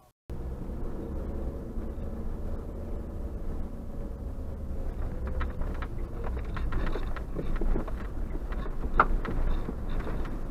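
Suzuki Jimny (JB74) driving along a gravel track, heard from inside the cabin: a steady low rumble of engine and tyres, with scattered clicks and rattles from about five seconds in.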